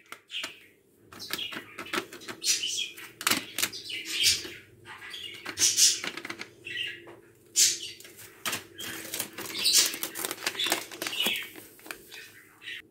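Paper-foil sachets of whipped-cream powder crinkling and rustling in the hand as they are opened and shaken out over a jug of milk, in irregular crackly bursts.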